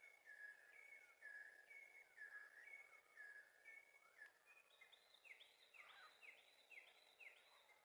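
Faint wren song: clear whistled two-note phrases, a higher note dropping to a lower one, repeated about once a second. About halfway through they change to quicker rising notes, about two a second.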